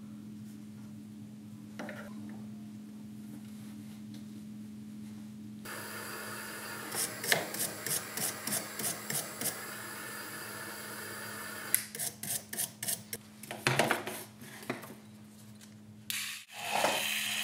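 Abrasive hand strokes rubbing back and forth, about two to three a second, starting about six seconds in and quickening about twelve seconds in. A steady low hum runs underneath, and the strokes cut off abruptly near the end.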